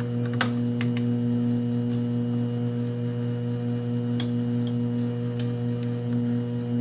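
Taig lathe running steadily with a motor hum as the tangential tool takes a facing cut in aluminium, with a few sharp ticks scattered through it.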